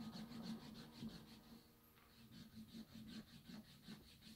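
Faint, fast rubbing strokes, about four a second, of a wooden-handled hand tool worked along the edge of a leather strap, quieter in the second half.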